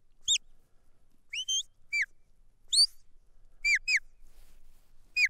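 A sheepdog handler's whistle commands to a working border collie: a string of short, sharp notes, some falling and some rising in pitch, with a quick pair about two thirds of the way in. The whistles direct the dog to put pressure on the sheep and bring the group on.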